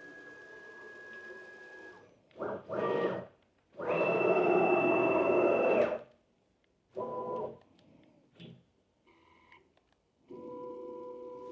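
CNC router gantry being jogged in short moves: the axis motors give a steady pitched whine that starts and stops abruptly with each move, at a different pitch from move to move. The longest and loudest move runs from about four to six seconds in, with shorter ones before and after.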